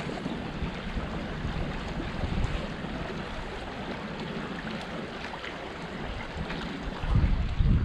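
Stream water running steadily, with strong wind buffeting the microphone in low rumbling gusts from about seven seconds in.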